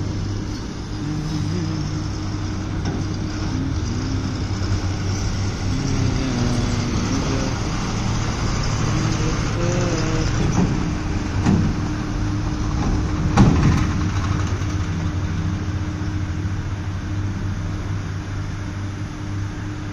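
Large truck engine running steadily at idle close by, with a sharp knock about thirteen and a half seconds in.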